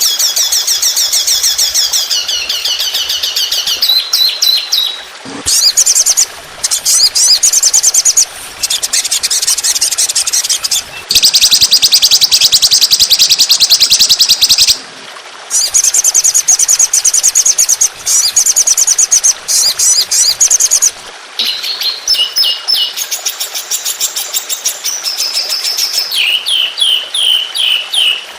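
Songbird singing a recorded tutor song of rapid-fire trills: phrases of fast, high repeated notes several seconds long, broken by short pauses. Some runs fall in pitch, and near the end there is a series of quick falling notes.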